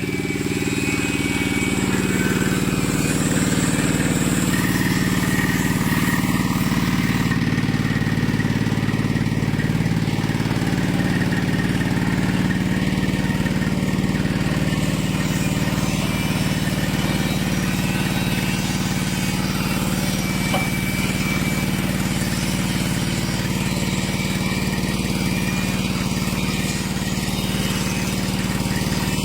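A 200 kg livestock feed mixer running steadily under power, its engine-driven mixing screw turning and pushing the feed toward the centre of the drum. It gives a continuous, even machine hum.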